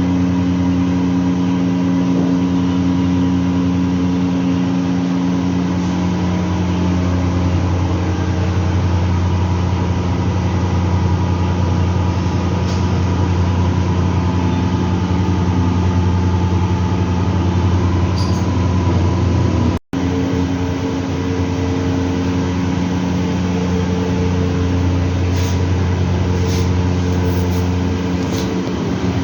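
LG washing machines running during a function test after servicing: a steady motor hum with several held tones. The sound cuts out for an instant about two-thirds of the way through, then carries on unchanged.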